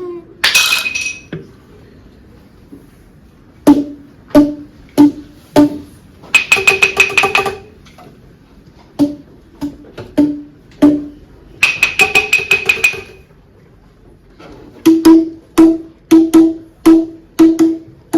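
Classroom hand percussion played as sound effects: evenly spaced single pitched knocks, like a wood block, about one and a half a second. Twice the hits turn into a quick roll of about a second and a half with a bright ringing tone, and near the end a steady run of knocks comes back.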